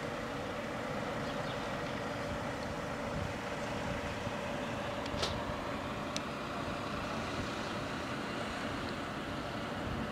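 Steady background hum of city traffic, with a faint steady tone throughout and two small sharp clicks about halfway through.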